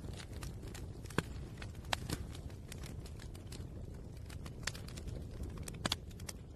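Paper burning and crackling: irregular sharp snaps and ticks over a steady low hiss.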